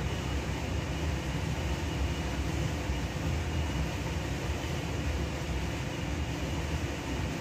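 Kitchen range hood exhaust fan running, a steady low rumble with an even hiss above it.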